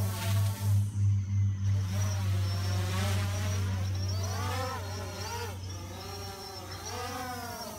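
DJI Phantom 4 Pro quadcopter drone in flight overhead, its propellers whining with pitch rising and falling as it manoeuvres. It grows fainter in the second half as it moves away.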